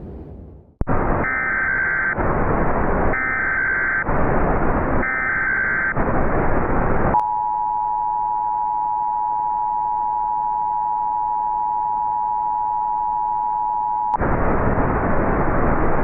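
Emergency Alert System header over radio static: three short bursts of high warbling data tones about a second apart. Then the EAS two-tone attention signal, a steady two-pitched tone held for about seven seconds, which cuts off suddenly into static.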